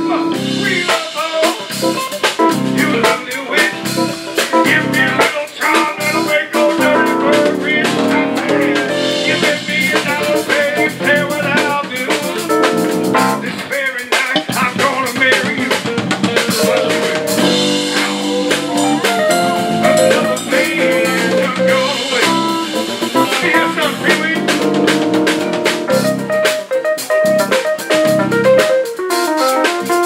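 Live band playing an instrumental passage: strummed acoustic and electric guitars, keyboard and a drum kit with snare and rimshot hits keeping a steady beat.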